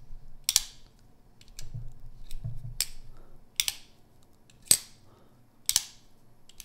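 Tactile Knife Co. Chupacabra folding knife's Super Lock clicking sharply as the blade is flicked open and closed, about six clicks. Each opening is a two-step sound, a first click from the lock and then the blade snapping open.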